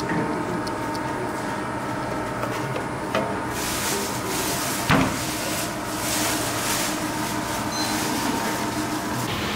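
Noodle-making machinery running with a steady hum, a hiss coming in about three and a half seconds in and dropping away near the end. A few short knocks, the sharpest about five seconds in, as the dough block is lifted off the steel tray.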